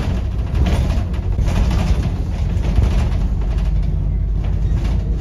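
Double-decker bus under way, heard from inside on the upper deck: a steady rumble of engine and road noise, with a few brief knocks.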